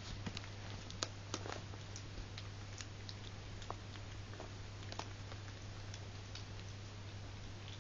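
Tiny puppy eating from her food bowl: irregular light clicks and taps, a few a second, as she picks at the food.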